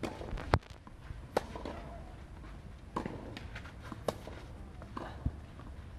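Tennis rally on a clay court: rackets striking the ball and the ball bouncing, heard as about six sharp pops spaced a second or so apart, the loudest about half a second in.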